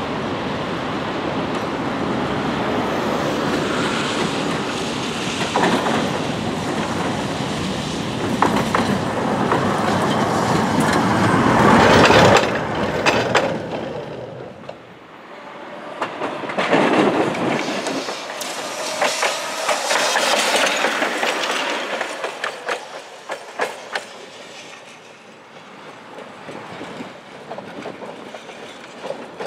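Tatra T3 tram running over worn, badly maintained track, rumbling and clattering over rail joints as it draws near, loudest as it passes about twelve seconds in, then dying away. A second, shorter tram pass swells up a few seconds later and fades.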